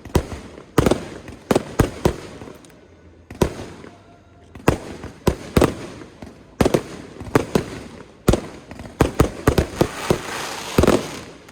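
Aerial fireworks bursting in a rapid, irregular series of sharp bangs, about twenty in all, with a brief lull a few seconds in.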